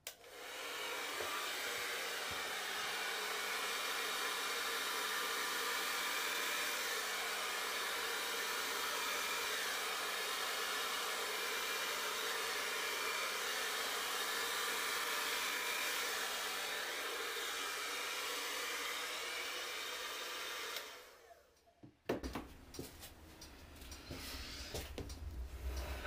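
Hand-held hair dryer running steadily on one setting, blowing wet acrylic pouring paint across the canvas; it switches off about 21 seconds in. A few knocks and a low rumble follow.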